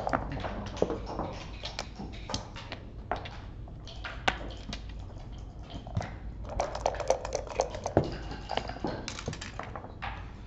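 Backgammon checkers and dice clicking on a wooden-cased board as a move is played: a scatter of light clicks and taps, coming thicker and faster for a few seconds past the middle, over a steady low hum.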